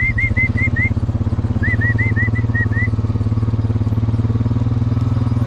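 Quad bike engine running steadily at low revs, with two short runs of quick high chirps, one at the start and one about two seconds in.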